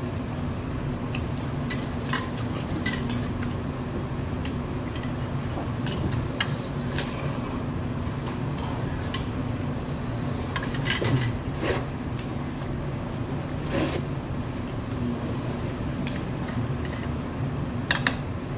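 Metal chopsticks clicking and scraping now and then against a ceramic bowl while eating, over a steady low hum.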